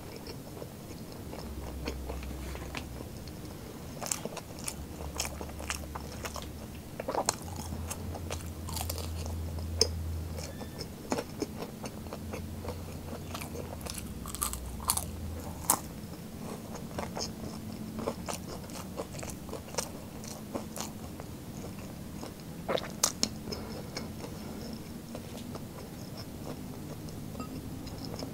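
Person eating crispy fried street snacks: crunchy bites and chewing, with scattered sharp crunches. A low hum runs under the first half.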